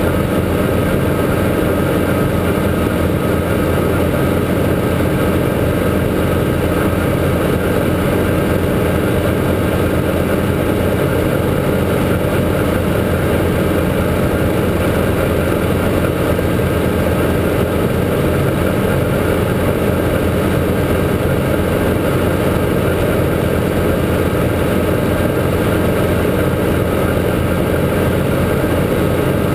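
Guimbal Cabri G2 helicopter's four-cylinder Lycoming piston engine and rotors running in a steady drone, with no change in pitch or level.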